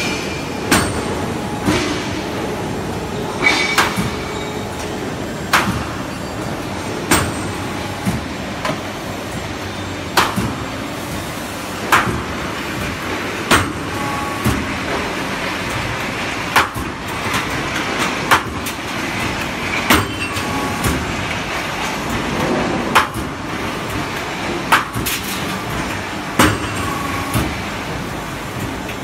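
Automatic angle-flange punching and cutting machine for ductwork working angle steel: a sharp metallic clack about every one and a half seconds as it punches, over the machine's steady running hum.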